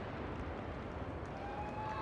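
Aerial fireworks display in a lull between salvos: the rumble and echo of the last bursts fading, with scattered faint crackles, and a thin rising whistle in the last half-second.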